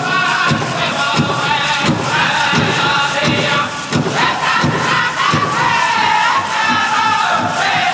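Powwow drum group singing a jingle dress contest song: several men's voices singing high-pitched in unison over a steady drumbeat.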